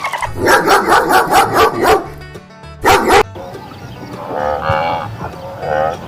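A dog barking: a quick run of barks, one loud bark about three seconds in, then a couple of longer drawn-out calls, over background music.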